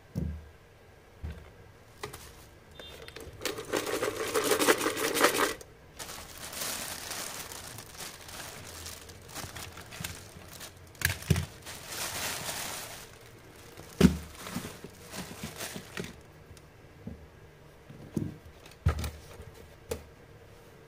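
Craft materials being handled on a desk mat: a pair of scissors set down with a thump, then a plastic container of wooden toothpicks shaken so the sticks rattle loudly for about two seconds. After that comes a longer stretch of softer rustling, with a few sharp knocks as objects are put down.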